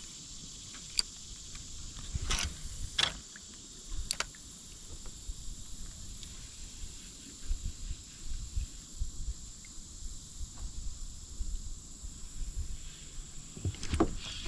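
Insects droning steadily at a high pitch over a low rumble, with a few short sharp clicks and knocks, most of them in the first four seconds and again near the end.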